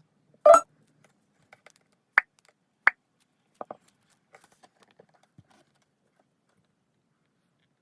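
Handling noises while unboxing a small speaker: a short knock about half a second in, two sharp clicks a little under a second apart, then a few faint ticks and taps.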